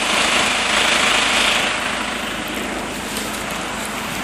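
Steady hiss of heavy rain, louder for the first two seconds and then easing slightly.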